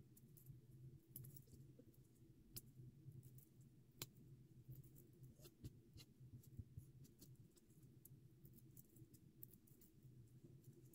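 Faint, irregular crackles and clicks of paper handling: adhesive 3D foam squares being peeled from their backing sheet and pressed onto paper cut-outs. A low, steady hum runs underneath.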